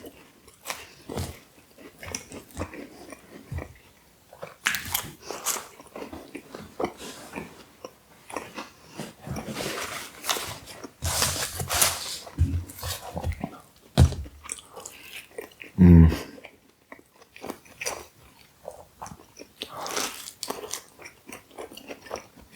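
A person biting and chewing pizza close to the microphone, with irregular crunches and wet chewing clicks of meat lovers pizza crust and toppings. A brief low hum-like sound comes about two-thirds of the way through.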